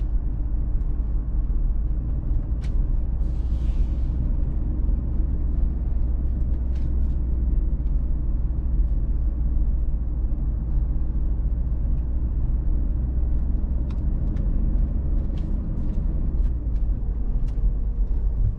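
Pickup truck driving slowly, heard from inside the cab: a steady low rumble of engine and tyres, with a few faint ticks.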